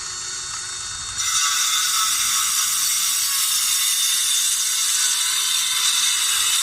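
Power saw cutting through plywood in one continuous cut, getting louder about a second in as the blade bites into the wood.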